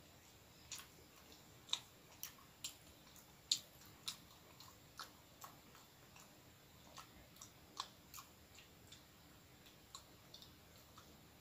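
Faint, irregular wet clicks and smacks of a mouth chewing soft filled bread, a little louder in the first few seconds.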